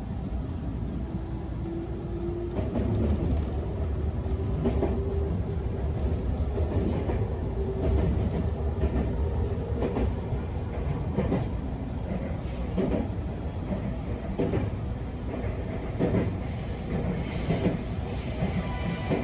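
Electric train running along the track: a low rumble under a motor whine that rises slowly in pitch over the first several seconds as it picks up speed, with repeated clicks of the wheels over rail joints.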